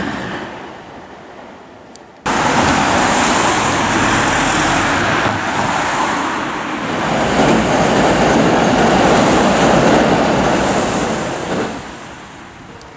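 A train fades away over the first two seconds. Then loud road-traffic noise cuts in suddenly: cars passing close by with tyre and engine noise, swelling twice and dying away near the end.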